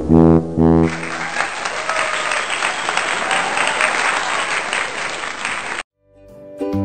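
Brass music ends about a second in, giving way to a crowd applauding. The applause cuts off abruptly about a second before the end.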